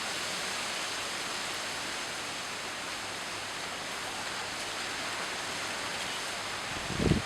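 Steady hiss of heavy rain falling. About seven seconds in, a short gust of wind buffets the microphone with a low rumble.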